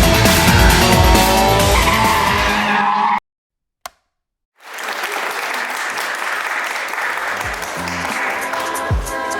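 Race car engine revving hard over music, rising in pitch, then cut off abruptly about three seconds in. After about a second and a half of silence with a single click, a quieter steady noise comes back, with a music beat returning near the end.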